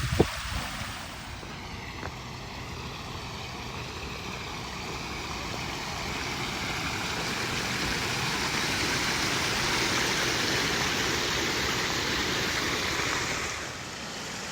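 Water splashing steadily down a pond waterfall, a rushing noise that grows louder over several seconds and drops off near the end.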